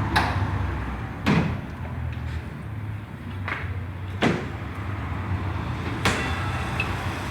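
Four sharp clunks of hinged panels on a pickup being opened and shut, over a steady low hum.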